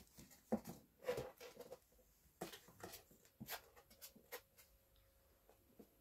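Fox cub scrabbling about in a wire crate: faint claw scratches and light knocks on a cardboard box in a handful of short bursts, dying away after about four seconds.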